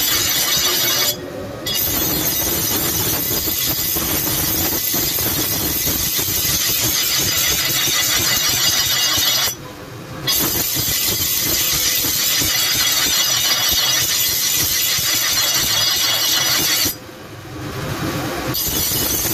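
Iron meat cleaver blade being sharpened against a spinning grinding wheel: a loud, steady grinding hiss. It breaks off three times, briefly about a second in, again about ten seconds in, and for longer near the end, when the blade is lifted off and only the wheel's motor hum is left.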